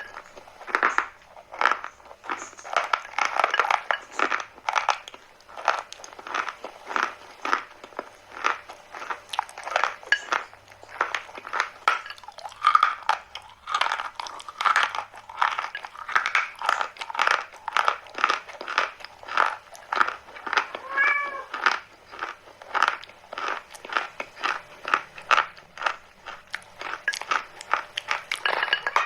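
Chalk being bitten and chewed, a steady run of crunches two or three a second. One brief pitched sound cuts in about two-thirds of the way through.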